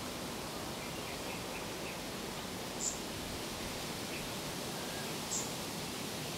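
Steady outdoor background hiss with a few faint bird chirps in the first two seconds, and two short sharp clicks, about three seconds in and again about five and a half seconds in.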